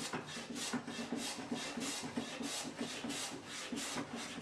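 Hand plane shaving the edge of plywood vise jaws to bring them flush with the bench top, in quick short strokes at about four a second.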